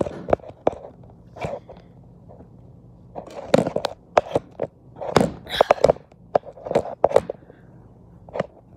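Handling noise from a phone being picked up and repositioned: irregular knocks, taps and rubbing close to the microphone.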